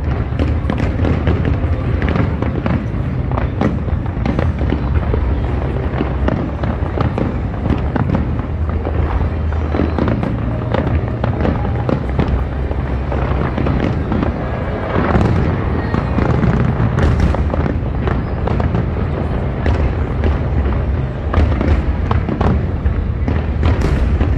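Aerial fireworks bursting in a dense, unbroken barrage of bangs and crackles.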